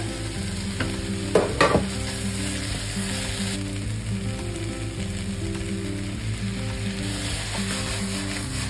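Julienned potato and celery sizzling in a hot frying pan as they are stir-fried, with a few clattering scrapes of the utensil against the pan about a second and a half in. Soy sauce is drizzled into the pan partway through.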